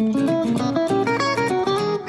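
Background music: a plucked guitar playing a quick run of single notes.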